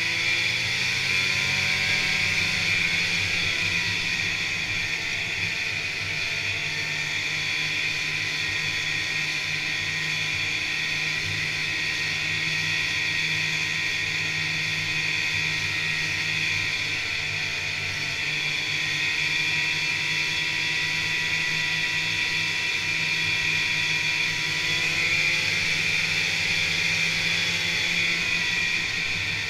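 Snowmobile engine running steadily as the sled travels along a snow trail, its pitch rising and falling slightly near the start and again near the end.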